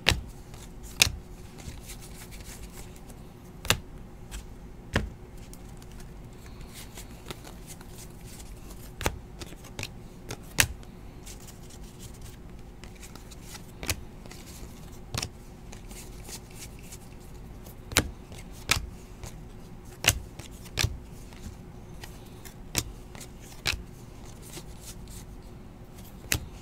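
Donruss basketball trading cards being flipped through by hand, one card at a time: scattered sharp flicks and clicks every second or two, over a faint steady hum.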